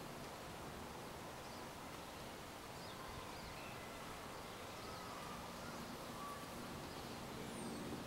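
Faint outdoor background noise with a few distant bird chirps, and a low hum of flying honeybees from the swarm rising near the end.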